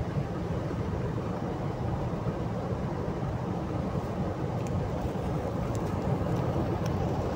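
Steady road and engine noise heard inside a moving car's cabin. A few faint clicks come in the second half.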